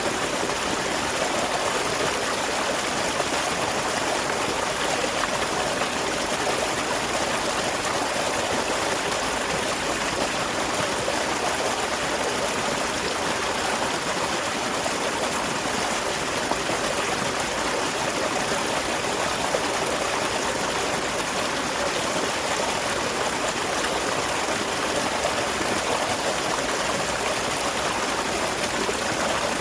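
Small waterfall splashing steadily into a stream, an even rush of falling and flowing water.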